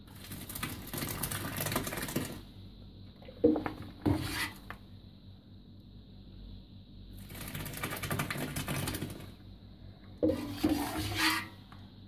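Curds and whey poured from a metal cezve into a cloth straining bag, splashing for about two seconds, twice. After each pour the cezve clanks and scrapes against the stainless steel pot as it scoops up more.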